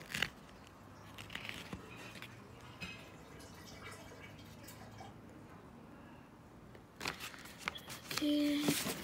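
Faint handling noises: a sharp click at the start, a few small taps and rustles, then a cluster of clicks and a short hummed voice sound near the end.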